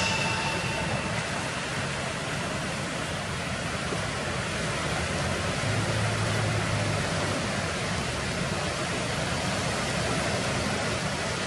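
Steady rushing noise with no clear rhythm or tone, evenly spread from low to high pitch.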